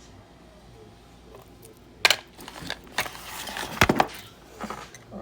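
Handling noise: a sharp knock about two seconds in, then a second or so of rustling with a few more clattering clicks, as small hard objects are moved about.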